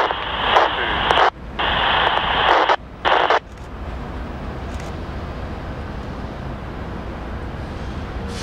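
Railroad radio traffic on a scanner: a thin, band-limited transmission that breaks up in short dropouts and cuts off sharply about three and a half seconds in. A steady low rumble remains after it.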